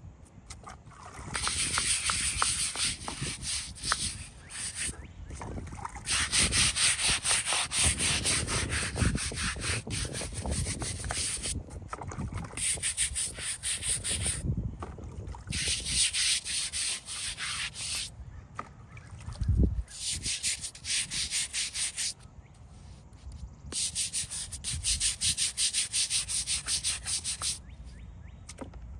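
Stiff bristle brush scrubbing a wet stone headstone in quick back-and-forth strokes, in several spells of a few seconds each with short pauses between.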